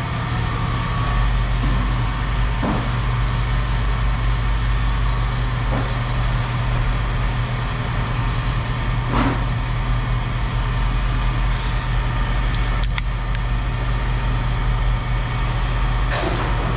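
A motor vehicle engine idling steadily, with a few faint knocks now and then.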